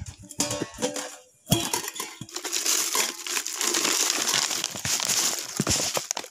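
A few light clinks, then from about a second and a half in a steady close crinkling and rustling of handled material.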